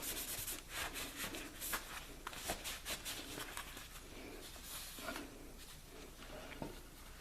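A rag wiping a metal motorcycle part clean after brake cleaner: irregular rubbing strokes that thin out toward the end.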